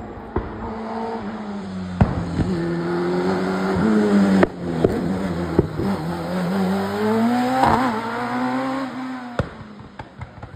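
Single-seater hillclimb racing car engine at high revs through a series of bends. The engine note drops as the car slows for the corners and climbs again as it accelerates, with several sharp cracks along the way, and falls away near the end.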